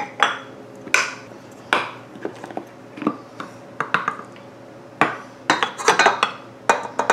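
Stand mixer running with its dough hook working flour into a stiff dough in a stainless steel bowl: a steady motor hum with repeated knocks and clanks of the dough against the hook and bowl, about one every second. Near the end a quick run of clatters as a plastic measuring cup taps against the bowl while flour is tipped in.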